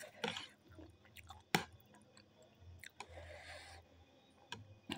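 Close-up eating sounds of a person chewing ramen noodles, wet mouth sounds with a few sharp clicks scattered through, the strongest about a second and a half in.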